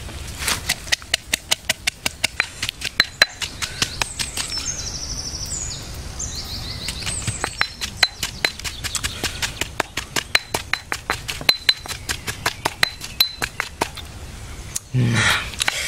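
A fast, even run of sharp clicks, about four a second, with birds chirping over them.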